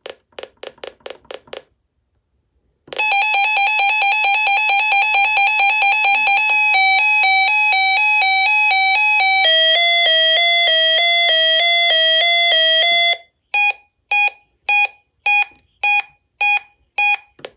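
Reecom R-1630 weather alert radio sounding its alert siren. A quick run of short beeps and a pause give way to a loud, fast-pulsing electronic tone that changes into a warbling two-tone pattern, stepping lower in pitch, then stops and turns into separate beeps at roughly two a second.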